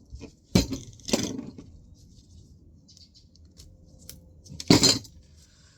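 Small metal parts of a dismantled floppy disk drive clinking and knocking as they are handled and set down. There are sharp clinks about half a second in and just after a second, and the loudest near the end.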